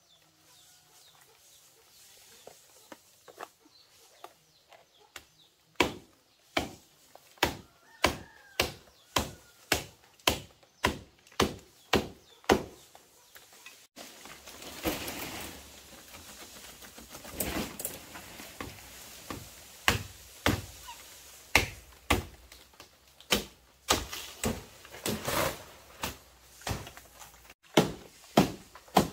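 A blade chopping in a steady run of sharp strikes, about two a second. The strikes break off briefly around halfway, then resume less evenly over a louder background hiss.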